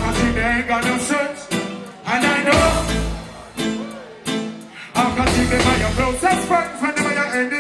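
Live reggae band playing, with a male singer over heavy bass and drums.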